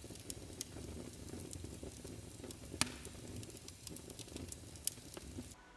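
Faint crackling hiss with a few scattered clicks.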